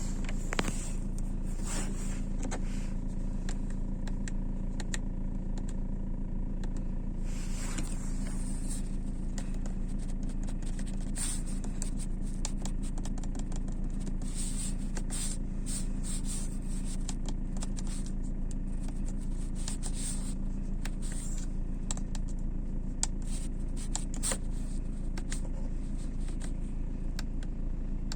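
Chinese diesel air heater running: a steady low hum from its fan and burner, with scattered irregular ticks and crackles over it.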